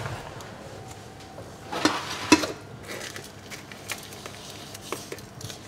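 Kitchen knife and glass baking dish handled around a roast chicken: a few sharp knocks and clicks about two seconds in, then faint scattered ticks.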